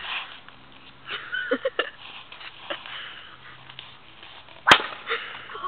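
Soft breathy noises and small scuffs, then a single sharp crack near the end, the loudest sound here.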